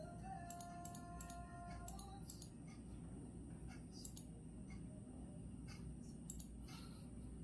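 Quiet room background: irregular light clicks and taps over a steady low rumble. A faint held tone sounds for about the first two seconds.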